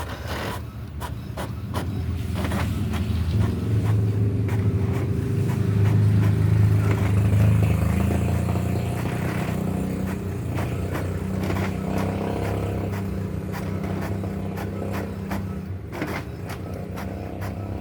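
Epson WorkForce Pro WF-C5890 colour inkjet printer running a print job: a steady mechanical hum with scattered clicks, swelling about six to eight seconds in and easing off later.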